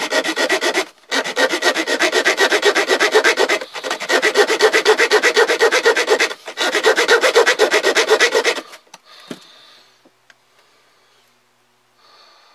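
A Swiss Army knife's small metal-cutting saw blade rasping back and forth through steel coat-hanger wire in quick, even strokes, with three brief pauses. The sawing stops about nine seconds in, followed by a few faint clicks.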